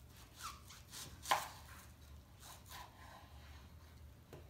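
Kitchen knife slicing through an onion and meeting a wooden cutting board: a handful of separate cuts, the sharpest about a second in.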